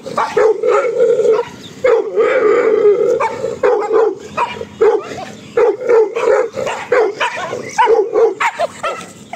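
Leashed pit bulls whining and yelping in repeated high-pitched cries, some held about a second with a wavering pitch, mixed with short sharp yelps. They are worked up at the sight of other dogs.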